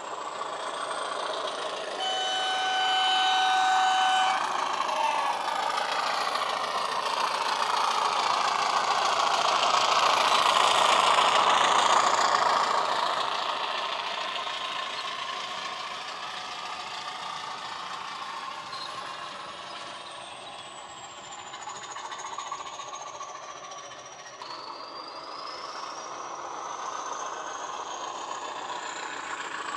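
Class 20 diesel sound file played through a model locomotive's DCC sound decoder and small speaker as the loco hauls wagons past, getting louder and then fading. A horn sounds about two seconds in and lasts about two seconds. Later a high whine falls slowly, drops, then rises again.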